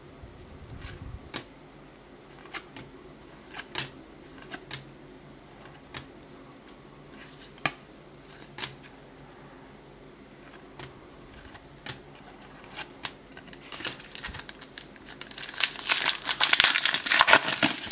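Football trading cards ticking sharply as they are flipped one behind another through a stack, roughly one card every second or so. From about 14 seconds in, a card pack's wrapper crinkles loudly as it is torn open.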